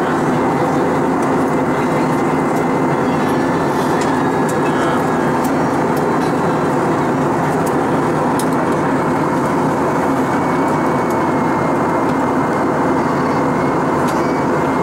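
Steady cabin noise of an Airbus A320-232 in flight, heard inside the cabin: the even rush of airflow and the drone of its IAE V2500 turbofans, with a faint steady high whine over it.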